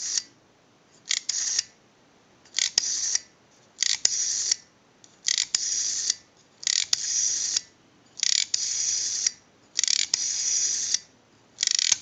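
Early Automatic Electric rotary dial dialed digit after digit, 2 up to 9, into a dial pulse analyzer: each time the finger wheel is let go it whirs back to rest under its governor, pulsing out the digit. About eight returns, each a little longer than the last as the digits climb.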